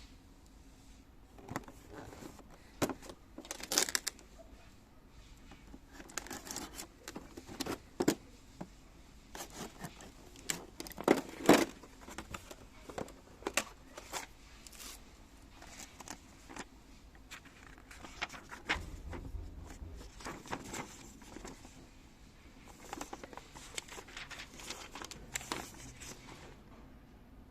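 Packaging and parts being handled while a cordless multi-cutter is unpacked: irregular rustling and crinkling with scattered clicks and knocks, the loudest cluster about halfway through.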